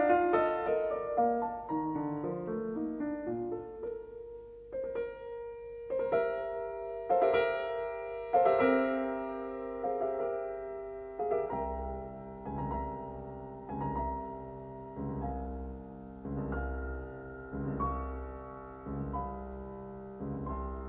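Piano music: a slow run of struck notes that ring and fade, with a low bass line coming in about halfway through.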